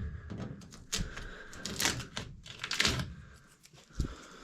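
Irregular clicks, taps and scraping from hands handling zone damper parts and wiring, with a couple of longer rustling scrapes near the middle.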